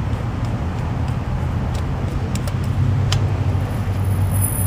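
Steady low hum of nearby road traffic or an idling vehicle, with a few light clicks about two and three seconds in.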